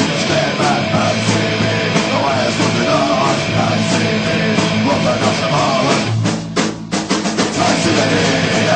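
Punk rock song with drums and singing, the band briefly dropping out about six seconds in before crashing back.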